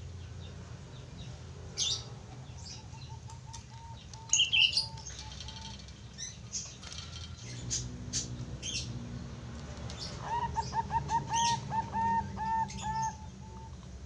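Young Bangkok-strain zebra dove (perkutut) cooing: a soft run of short, evenly spaced notes a few seconds in, then a louder, quicker run of coos near the end. Sharp high chirps break in at times, the loudest around the middle.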